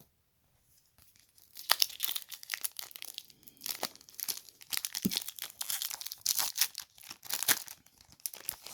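Foil wrapper of a trading card pack crinkling and tearing as it is opened, with a dense run of sharp crackles starting a little under two seconds in.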